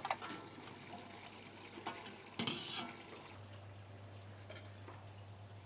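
Faint cooking sounds from a pot of soup: a few light clinks of a utensil against the pot and a short, louder scrape about two and a half seconds in.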